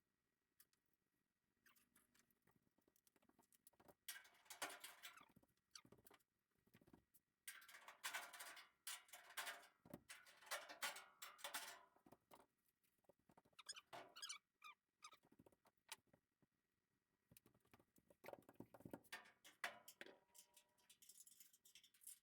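Hand tools working loose bolts: faint bursts of rapid scratchy clicking and rattling, coming several times with pauses between.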